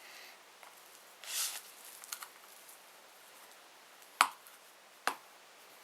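Pry tool working around the edge of a phone's glued screen: a short scraping rustle, a few faint ticks, then two sharp clicks about a second apart.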